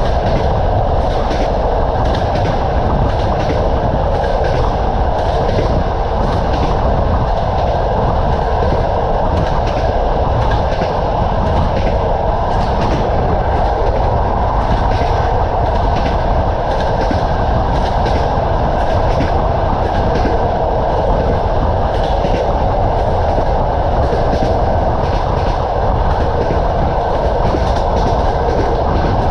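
Train wheels clattering over the rail joints at speed, a steady run of short knocks over a constant rolling rumble.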